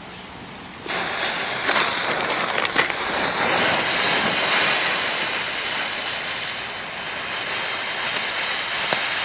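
A yellow colour-flame firework catching about a second in and burning with a steady, loud hiss.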